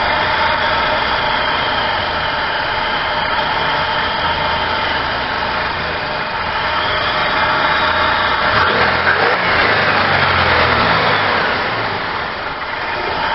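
1999 Buick Regal GS's supercharged 3800 Series II (L67) 3.8 L V6 idling. About nine seconds in, the engine speed rises and falls for a few seconds. This is the rough, uneven idle the owner traced to vacuum leaks from hardened lower fuel-injector O-rings and a leaking throttle body gasket.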